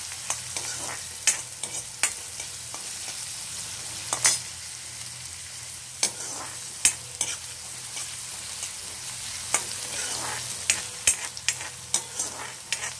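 Chopped onion and crushed garlic sizzling steadily in hot oil in a kadai, with a metal spatula scraping and tapping against the pan as the onions are stirred. The taps come irregularly, several in quick succession near the end.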